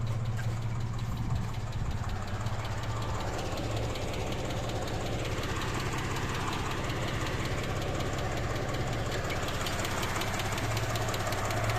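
Daihatsu Charade engine idling steadily and evenly, running smooth.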